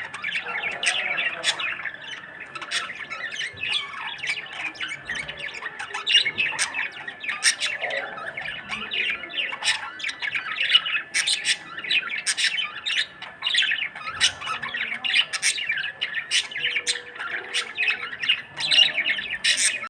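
A budgerigar chattering and warbling without a break: a quick, jumbled run of chirps, squawks and clicks.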